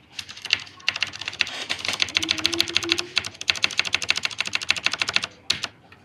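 Typing on a mechanical keyboard with soldered-in switches: a fast run of key clicks for about five seconds, then a few single keystrokes near the end.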